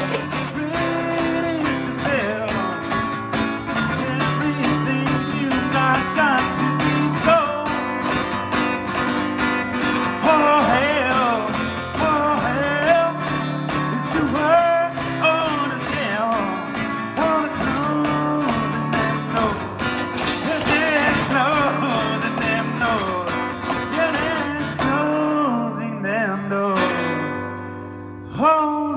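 Acoustic guitar strummed steadily under a wavering melody line, a stretch of a live folk-blues song with no clear lyrics. The playing thins out about three seconds before the end, then a fresh strum comes in.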